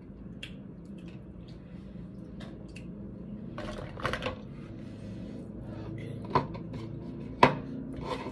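Snow crab legs and a clear plastic food container clicking and clattering as hands pick through a seafood boil. Sharper knocks come about four, six and seven and a half seconds in, the one near seven and a half seconds the loudest.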